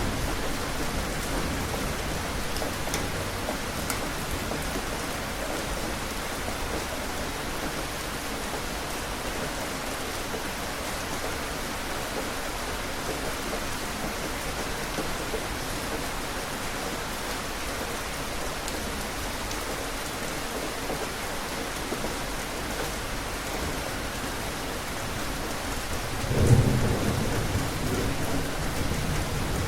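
Steady rain falling, an even hiss, with a low roll of thunder breaking in near the end.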